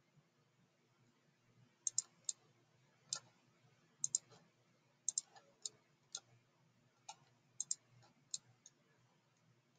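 Computer mouse clicking: about a dozen faint, sharp clicks at uneven intervals, some in quick pairs, starting about two seconds in. They come from selecting faces in CAD software.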